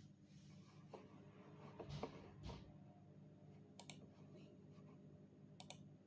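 Faint clicking over a quiet, low steady hum: two soft knocks about two seconds in, then two quick double clicks from the laptop's pointer buttons.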